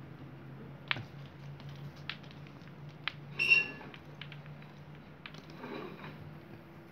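Scattered light taps and clicks of a kitten playing on a floor mat, pawing at a wand toy's dangling balls. There is a short high-pitched squeak about halfway through, over a steady low hum.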